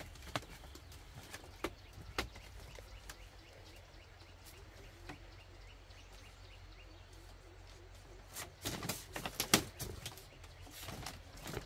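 Scattered clicks and taps from a woven bamboo basket cradle and the mat inside it being handled and smoothed, with a quick cluster of louder knocks near the end.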